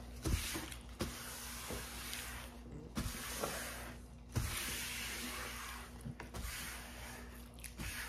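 Fast-food paper wrapper rustling and crinkling as it is folded and swept across a tabletop. The noise comes in long stretches with a couple of short pauses and a few light taps.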